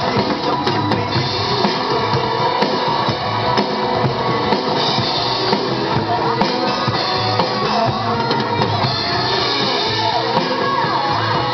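Rock music with a driving drum kit and guitar, playing without pause.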